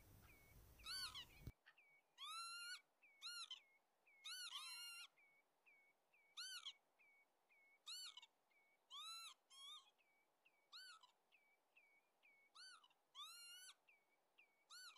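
Northern lapwings giving faint, repeated short calls that rise and fall, about one a second and sometimes overlapping: alarm calls of breeding birds that are guarding eggs or chicks.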